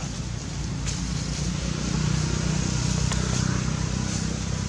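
A motor vehicle's engine running steadily as a low rumble, growing louder about two seconds in.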